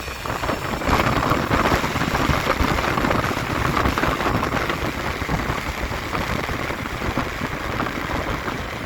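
Heavy wind buffeting on the microphone of a moving Honda Zuma two-stroke scooter, a loud rushing, gusting noise that all but buries the engine's sound.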